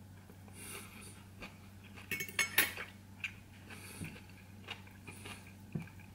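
Metal fork clinking and scraping on a dinner plate, with a burst of clatter about two seconds in and single light taps after, over a steady low hum.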